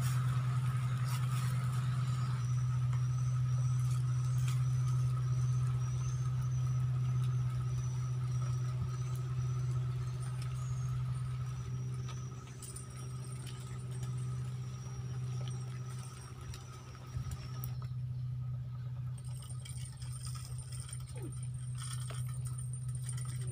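A steady low mechanical hum, like a motor or engine running, with a faint thin high whine over it that stops near the end.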